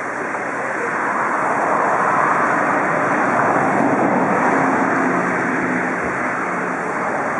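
Steady hiss of steam escaping from a DR Class 44 steam locomotive, swelling a little about a second in.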